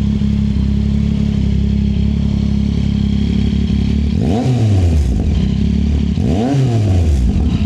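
2024 Yamaha MT-09SP's inline three-cylinder engine idling through a MIVV full-system exhaust with the dB killer removed. It is blipped twice in the second half, each rev rising quickly and dropping back to idle.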